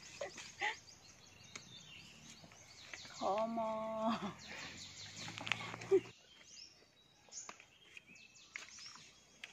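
Small birds chirping over the crackle and rustle of dry fallen leaves as flowers are picked by hand, with a woman's voice briefly holding a drawn-out vowel a little past three seconds in.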